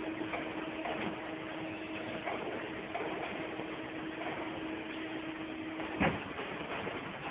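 Stator end-winding forming press running with a steady hum while its tool works the copper coils, set against a general machine-shop noise. About six seconds in the hum stops with a single sharp clunk, by which point the forming tool has lifted off the stator.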